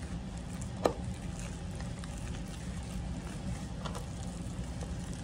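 Whisk stirring dry flour into wet mashed-banana batter in a plastic container: soft wet squishing and scraping, with one sharp tap about a second in and a few light ticks near the end, over a steady low hum.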